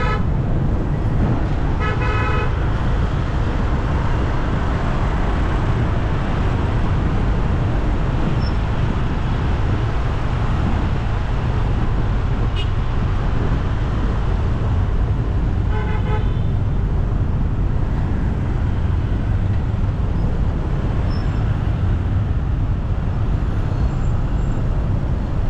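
Steady city road traffic with a heavy low rumble, and short vehicle horn toots about two seconds in and again around sixteen seconds in.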